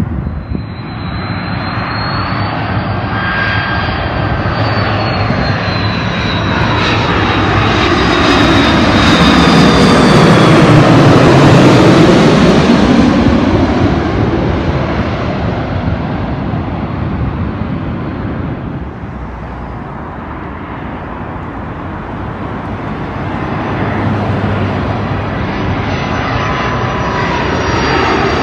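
Jet airliner on approach passing low overhead: its engine noise swells to a loud peak about eleven seconds in, then fades as it flies away. Near the end a second airliner's engines begin to grow louder. In the first few seconds a high engine whine slides down in pitch.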